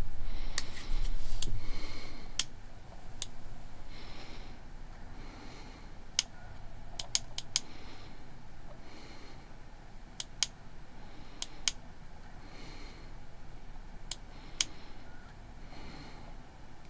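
Scattered small sharp clicks, some in quick runs of two to four, over soft, regular breathing.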